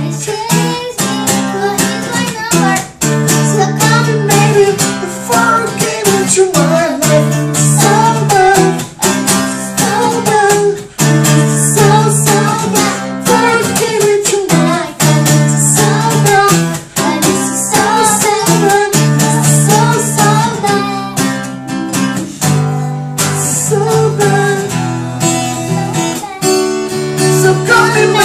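Music: strummed acoustic guitar chords with a voice singing a wavering melody over them.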